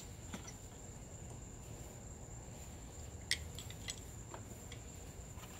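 Faint quiet with a steady thin high whine and a low hum, broken by a few light clicks between about three and four and a half seconds in as the loosened 7.3L Powerstroke injectors are handled.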